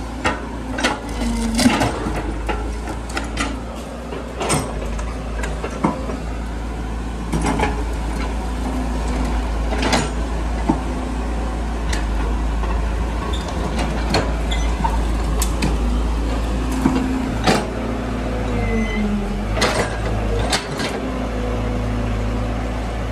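Caterpillar tracked excavator's diesel engine running steadily under load as the hydraulics work the boom and bucket, the pitch shifting briefly now and then as the arm moves. Repeated sharp knocks and clanks from the bucket and arm as it dumps and digs soil.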